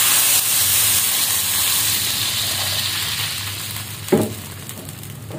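Water being poured into a hot wok of sautéed chicken, sizzling and hissing hard at first and fading steadily over several seconds. There is one brief knock about four seconds in.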